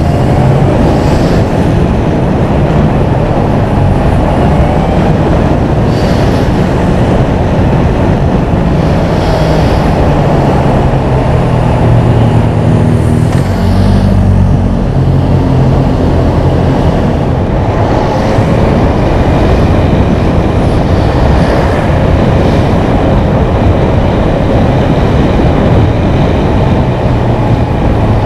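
Honda CB650F's 649 cc inline-four engine running while riding through city traffic, its note rising and falling with the throttle, under a steady rush of wind on the microphone.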